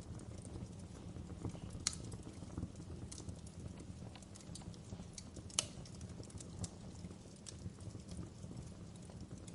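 Wood fire crackling in a fireplace: a steady low rumble of burning with scattered sharp pops, and two louder pops, one about two seconds in and one a little past the middle.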